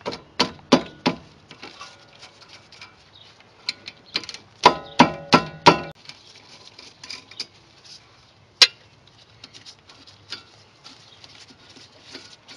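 Metal hand tools clinking and clanking against brake hardware while the 12 mm caliper mounting bolts are undone. Three clicks come at the start, then a run of four ringing metallic clanks about five seconds in, and one sharp clink later, with light ticks and rattles between.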